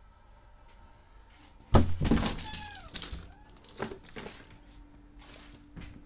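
Heavy walk-in cold-room door latch released with a sudden loud clunk a little under two seconds in, followed by a rush of noise with a short falling squeal as the door swings, then a couple of clicks; a steady low hum comes in about halfway through.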